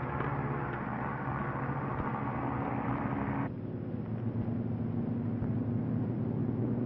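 Steady low drone of aircraft engines running. About halfway through, the higher hiss drops away abruptly, leaving a lower drone.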